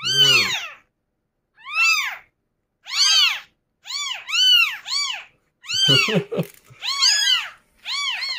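Very young, motherless kittens mewing over and over in short, high, arching cries, about a dozen in all, coming faster in the second half. The kittens are hungry and crying to be fed.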